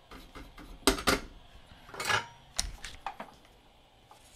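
Small hard tools clacking and rattling on a workbench: two sharp clacks about a second in, a short scraping rasp around two seconds, another clack, and lighter ticks between.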